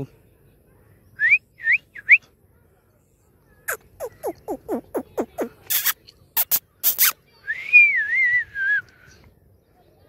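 Indian ringneck parakeet calling. Three short rising chirps come first, then a quick run of about eight falling notes, a few loud, harsh screeches, and a wavering whistle near the end.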